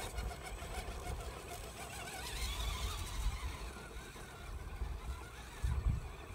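RC rock crawler's small electric motor and drivetrain whining, wavering up and down in pitch as it crawls over steep rock. Wind rumbles on the microphone in low gusts.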